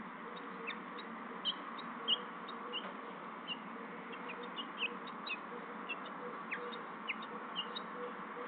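House finches chirping at the nest: a string of short, high chirps at irregular intervals over a steady background hiss.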